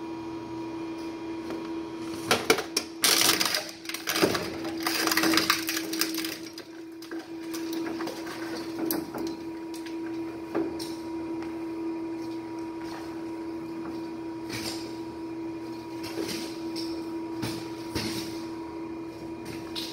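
Industrial hard-drive and media shredder running with a steady hum. About two seconds in, a few seconds of loud crunching and cracking as material is ground up by the rotating blades; after that the motor runs on with only a few scattered clicks.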